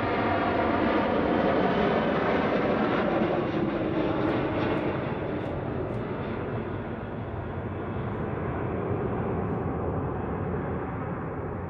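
KC-135 Stratotanker's four jet engines at takeoff power as the tanker lifts off and climbs away. The engine tones fall gently in pitch over the first few seconds, and the noise fades slowly as the aircraft recedes.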